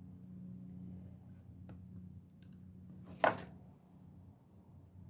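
Steady low electrical hum, with a few faint clicks and one short scraping sound a little over three seconds in.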